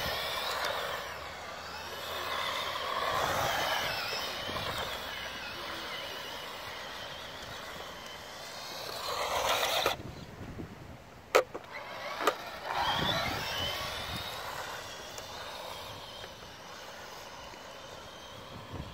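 Radio-controlled lowrider truck's electric black-can sport motor whining as it is driven, the pitch rising and falling with the throttle and swelling near the middle. The whine drops away for a couple of seconds, with two sharp clicks, then picks up again.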